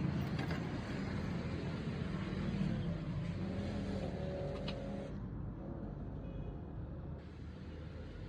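Petrol car engine idling steadily with a low rumble.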